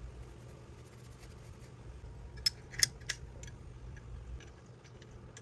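Light clicks and taps of the metal parts of an antique Millers Falls No. 16 block plane being handled and adjusted during tune-up, with three sharper clicks close together about two and a half seconds in, over a low steady hum.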